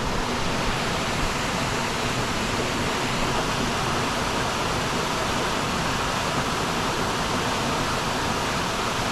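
Steady, unbroken rush of falling water from a small two-tier waterfall.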